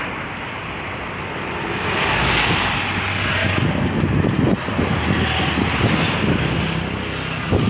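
Road traffic on a busy multi-lane avenue: car and truck engines running and tyres on asphalt, growing louder about two seconds in as vehicles pass close by.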